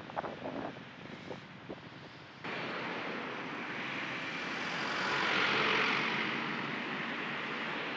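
Road traffic: a steady rush of tyres and engines starts abruptly about two and a half seconds in. It swells to its loudest as a light truck passes close, then eases off. Before it there are only a few faint light knocks over quiet outdoor noise.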